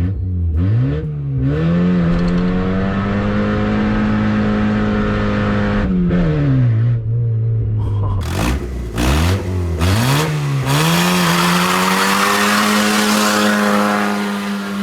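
1996 Honda Civic's 1.6 L SOHC D16Y7 four-cylinder, its axle-back exhaust section removed, revved up and held high for about five seconds twice, dropping back to idle between, in a burnout attempt. A hiss builds during the second rev.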